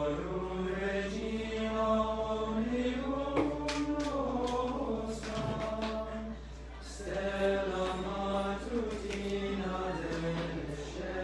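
Male choir of seminarians singing a cappella, holding long sustained chords, with a brief break between phrases about six seconds in.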